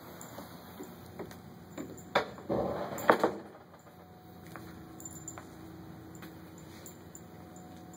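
A pet moving about a hallway: scattered light clicks, with a louder burst of rustling noise lasting about a second, two to three seconds in.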